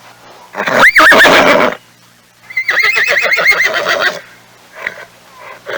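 Horse whinnying twice: a short call about half a second in whose pitch rises and wavers, then a longer whinny with a fast wavering pitch from about two and a half to four seconds.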